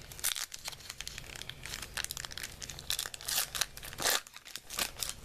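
Plastic wrapper of a Bowman baseball card pack being torn open and crinkled by hand: irregular crackling rustles, loudest about four seconds in.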